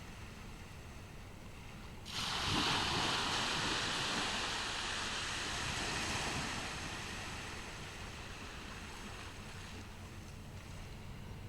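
Ocean surf on a beach: a wave breaks about two seconds in, and its wash fades slowly over the next several seconds above a steady hiss of surf.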